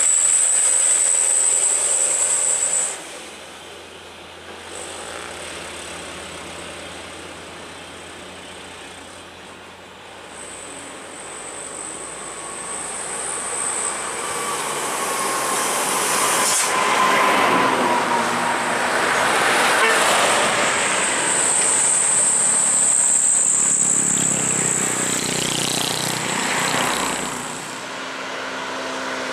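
Heavy diesel trucks running past on a hill road, engine and tyre noise rising as they come close.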